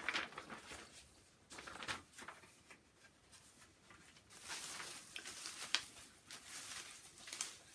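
Faint rustling and crinkling of paper raffle tickets as a hand rummages through them in a fabric hat to draw one, in irregular spells with small clicks.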